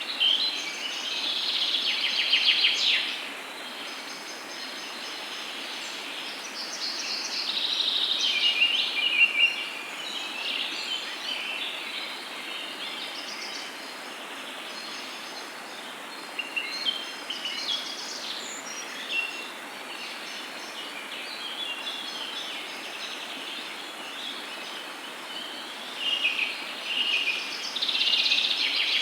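Songbirds singing in repeated bursts of chirps and warbles over a steady background hiss, the song coming and going every several seconds.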